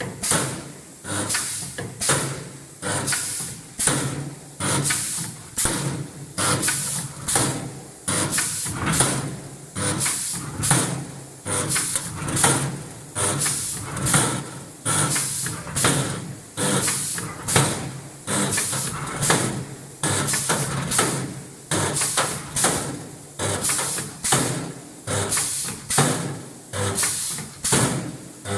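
CNC spot welding machine running its automatic weld cycle: a steady run of sharp mechanical strokes, about three every two seconds, each trailing off briefly.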